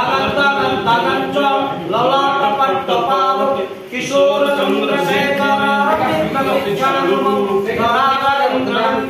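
Voices singing a devotional chant without instruments, with a brief dip about four seconds in.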